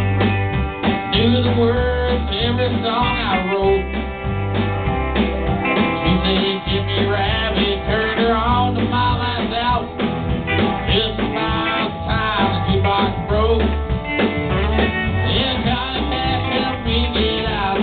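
Live country band playing: acoustic and electric guitars over bass guitar and drums, with a steady driving bass pulse.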